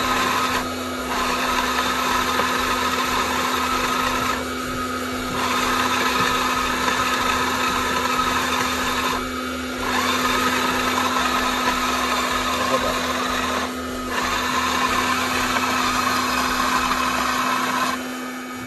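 Electric coffee grinder running steadily, grinding freshly roasted coffee beans to powder. Its sound dips briefly four times and dies away near the end.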